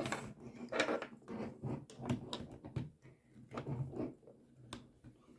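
Plastic toy figure and packaging being handled, giving a string of irregular light clicks and knocks.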